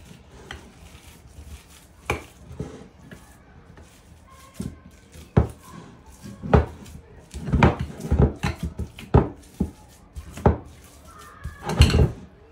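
Hands kneading and pressing date paste in a ceramic bowl, the bowl knocking irregularly against the countertop, with louder thumps in the second half.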